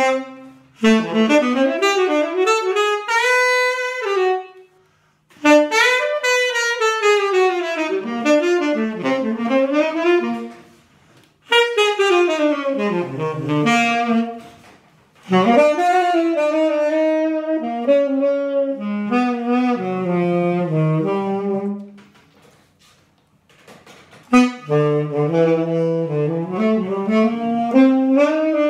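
Tenor saxophone played through a vintage Selmer short-shank mouthpiece: several melodic phrases with scoops and bends in pitch, broken by short pauses, reaching down to low notes. The mouthpiece gives the tone a lot of bite.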